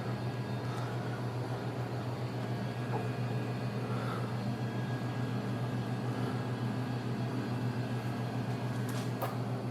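A steady low mechanical hum with a faint hiss, unchanging throughout, with a few faint clicks.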